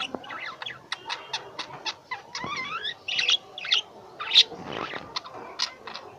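Pet lovebirds chattering: a busy run of short, high chirps and squeaks, with a few gliding whistled notes.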